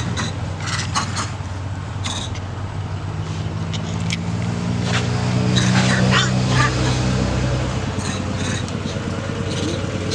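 A motor engine running steadily, growing louder from about four seconds in and easing back after about eight seconds, with scattered short clicks and faint voices over it.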